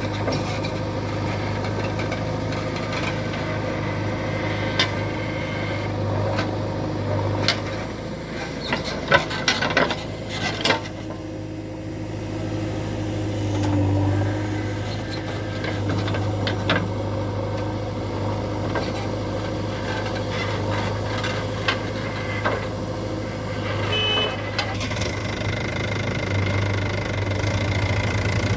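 Diesel engine of heavy machinery running steadily at a low, even pitch, with a short cluster of sharp knocks and clatters about nine to eleven seconds in.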